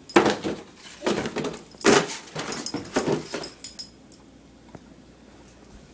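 A pet dog making funny noises in play: about five short, rough, noisy huffs or growls over three seconds, then it goes quiet.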